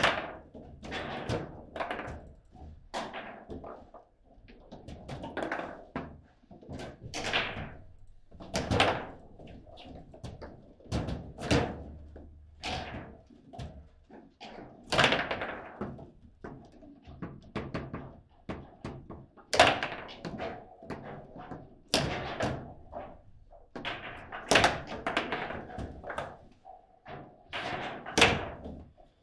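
A foosball table in play: an irregular run of sharp knocks and thunks as the ball is struck by the players on the rods and the rods are slammed. Some strikes, toward the second half, are much louder than the rest.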